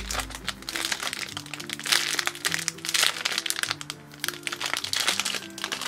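Clear plastic packaging crinkling in irregular crackles as a sushi-shaped squishy is handled and squeezed inside its bag, over background music with held notes.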